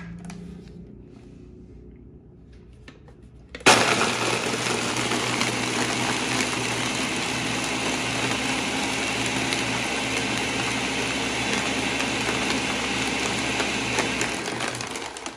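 Ninja Professional 1000-watt blender crushing ice into a frozen margarita slush. It starts suddenly about four seconds in, runs loud and steady for about ten seconds, then winds down near the end.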